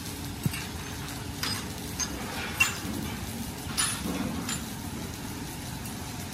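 Workshop metalwork: scattered sharp metal clinks and knocks, about six of them, the loudest about two and a half seconds in, over a steady low machine hum.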